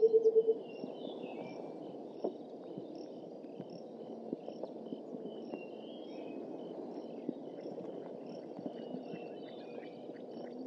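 The end of a white-browed coucal's bubbling call, a fast run of low hoots falling slightly in pitch, which stops about half a second in. After it there is a steady low background hiss, with faint high chirps and regular ticks from small birds and insects.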